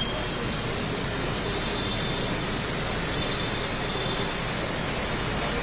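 Heavy rain falling in a steady hiss, with traffic on the wet road beneath it.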